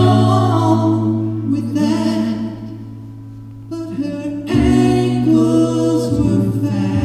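Two men singing live into microphones in close harmony over a held low note. The singing eases off briefly in the middle, then comes back in strongly.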